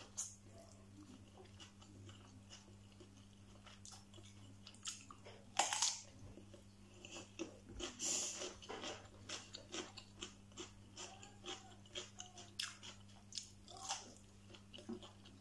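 Close-up chewing of stir-fried instant noodles: a run of wet mouth smacks and small crunches, denser in the second half, with a couple of louder smacks about six and eight seconds in, and a bite into a sausage near the end.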